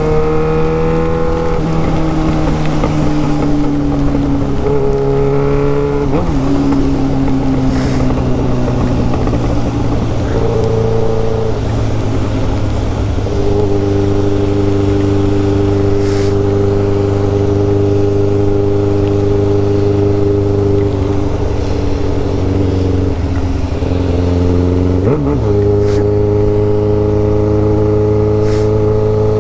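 Yamaha XJ6 motorcycle's 600 cc inline-four engine running under way, heard from the rider's position. It holds a steady note at cruising revs for long stretches, dips and rises in pitch as the throttle eases off and opens again, and shows a quick drop and recovery near the end, like a gear change. The exhaust is an open straight pipe.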